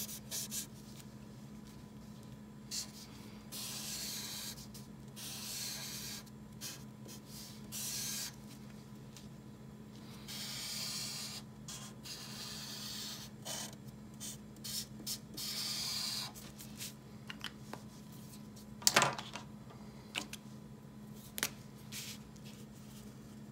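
Felt tip of a Caliart art marker rubbing across paper in repeated colouring strokes of a second or two each, with small clicks between them and one sharp click about three-quarters through.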